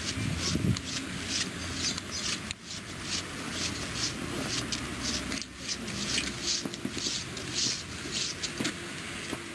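Footsteps crunching on packed snow, about two steps a second.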